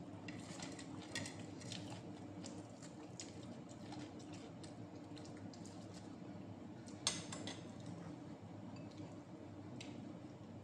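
Eating sounds as smoked fish is picked apart by hand over a ceramic plate and chewed: scattered small clicks and soft wet smacks, with one sharper clink about seven seconds in. A low steady hum runs underneath.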